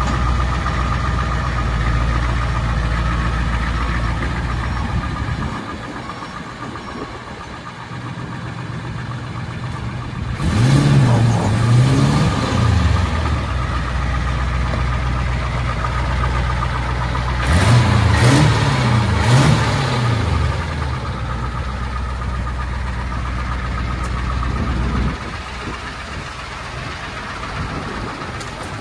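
1992 International 4600 box truck's Navistar diesel engine idling steadily. It is revved twice, about ten seconds in and again about seven seconds later, each time in three quick blips before dropping back to idle.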